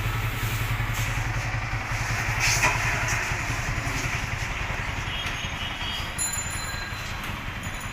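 Yamaha R15 V3 single-cylinder engine idling with a steady, even rhythmic beat.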